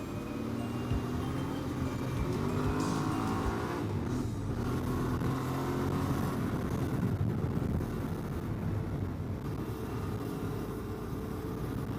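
Enduro motorcycle engine running under way off-road, rising in pitch as it accelerates, with a brief drop about four seconds in like a gear change, then pulling steadily on.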